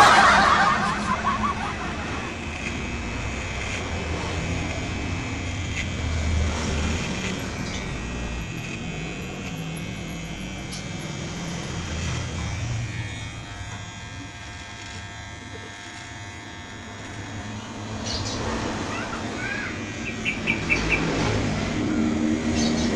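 HK-900 electric hair clipper running with a steady buzz as it is worked over the chin and jaw, cutting beard stubble, its blades freshly oiled. A low rumble rises and falls underneath.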